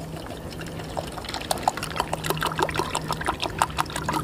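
Water poured from a plastic bottle into a metal canteen cup, with quick splashing and glugging that starts about a second in and grows busier.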